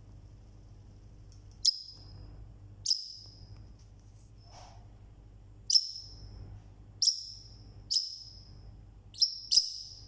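Parrotlet (Forpus) giving seven sharp, loud, high-pitched calls at irregular intervals, the last two in quick succession near the end.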